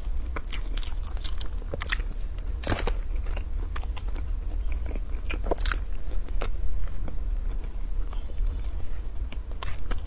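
Close-miked mouth sounds of a person eating a soft pastry: chewing with irregular small clicks and crackles, a few sharper ones about three seconds in and again around five to seven seconds in.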